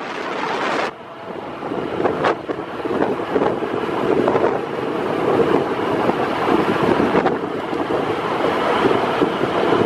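Heavy wind noise buffeting a microphone moving at road speed, over the steady running and road noise of the vehicle carrying it.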